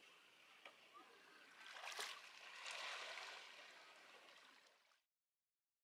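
Small waves lapping faintly on a sandy, pebbly shore, one wash swelling about two seconds in and ebbing away. The sound cuts to dead silence near the end.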